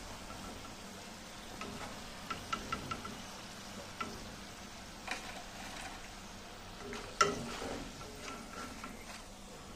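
Hot oil sizzling in an iron karahi as fried potato peels are scooped out with a wire-mesh skimmer, with several sharp metal clinks of the skimmer against the pan, the loudest about seven seconds in.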